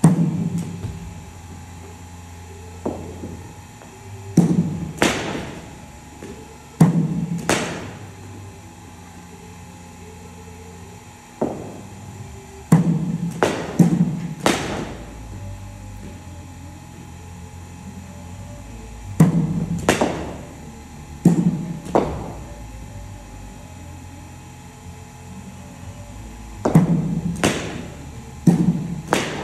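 A brand-new Kashmir willow cricket bat striking balls: sharp knocks every few seconds, most coming in pairs about half a second apart, over a steady low hum.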